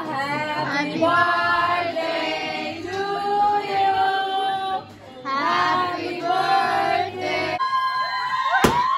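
A song with singing, the voice holding and sliding between notes, with a short break about five seconds in; near the end a single steady high note and a sharp click.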